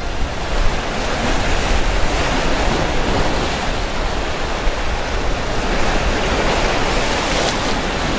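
Sea waves breaking and washing over the boulders of a rock breakwater, a steady loud rush of surf.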